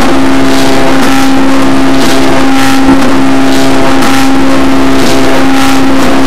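Stepper motors of a homemade CNC hot-wire foam cutter running with a loud, steady whine as the machine slowly feeds the wire through the foam.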